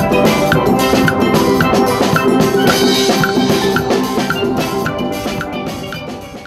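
Steel band playing: steel pans carrying the melody over a drum kit, congas and a regular percussion click, fading out near the end.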